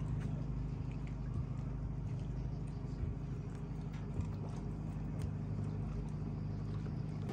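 A large motor yacht's engine running with a steady low drone, with scattered light clicks and knocks over it.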